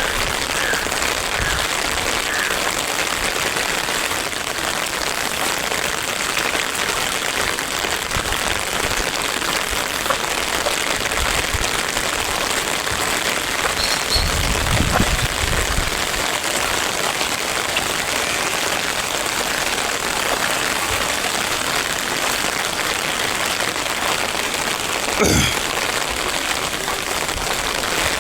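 Heavy rain falling steadily, an even hiss. A brief low rumble comes about halfway through and a single sharp knock near the end.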